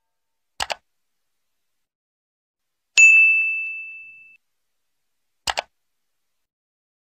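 A sound-effect ding: one sharp, bright bell-like strike that rings out and fades over about a second and a half. It falls between short double clicks, one before and one after.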